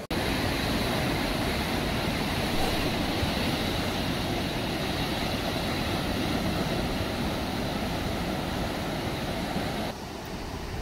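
Steady noise of heavy surf breaking on the reef, with wind on the microphone. It drops to a quieter level about ten seconds in.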